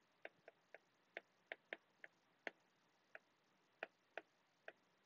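Stylus tip tapping and clicking on an iPad's glass screen while handwriting: about a dozen faint, sharp ticks at uneven intervals.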